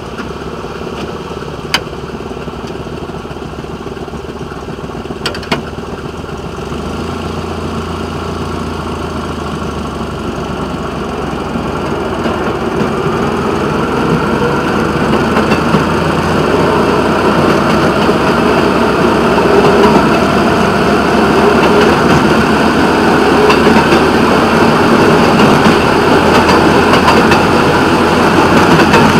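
Railway motorcar's engine running and its steel wheels rolling on the rails as it gets under way, growing steadily louder as it picks up speed. A couple of sharp clicks stand out in the first six seconds.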